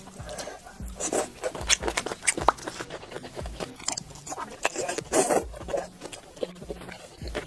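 Close-miked eating: biting and chewing soft, oil-coated pieces pulled off skewers of red-oil chuanchuan, with irregular mouth clicks and smacks.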